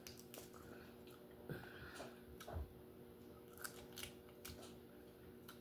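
Quiet eating of lobster: a handful of faint, scattered clicks and soft crunches as the shell is picked apart and the meat is chewed.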